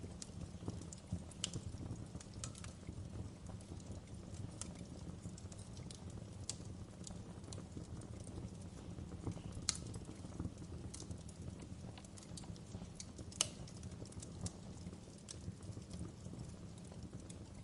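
Wood fire crackling in a fireplace: a steady low rumble of burning with irregular sharp pops and snaps, two louder pops about ten and thirteen seconds in.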